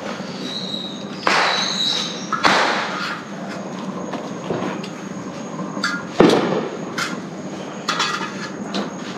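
A wad of paper towel held in metal tongs being rubbed and scraped across the wet surface of a hot metal wok, wiping it clean: rough rubbing strokes with a few louder sweeps among them.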